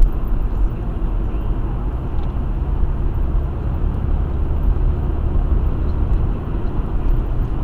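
Steady road and engine rumble of a car cruising at highway speed, heard from inside the cabin.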